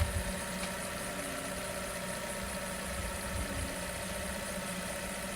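Suzuki Swift's engine idling steadily, run briefly after its oil change.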